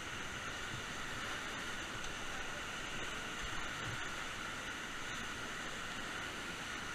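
Steady rush of fast river water around a raft in rapids, an even hiss with no breaks.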